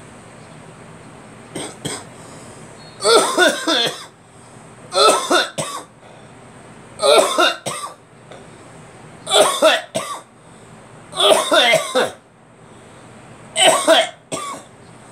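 A person coughing repeatedly. A faint short cough comes about a second and a half in, then six loud coughing fits of two or three coughs each, roughly every two seconds.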